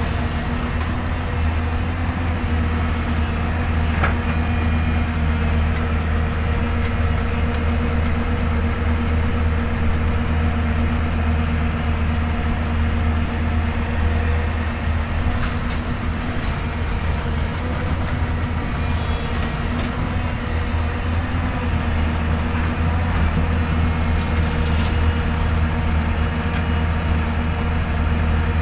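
Hyundai Robex 220-9S excavator's diesel engine running steadily at working speed, with a few faint clicks from the machine.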